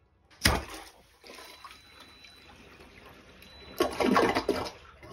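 Milwaukee AirSnake air drain gun fired into a clogged toilet: a sudden loud burst about half a second in, then water rushing and gurgling down the drain, loudest a little before the end, as the clog clears.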